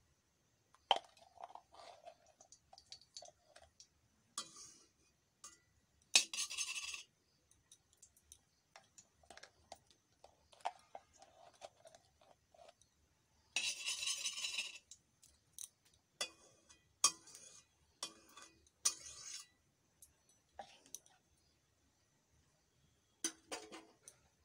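A spoon clinking and tapping against metal and glass kitchenware as ghee is added to a pan of hot oil, with scattered light knocks and two short bursts of hiss.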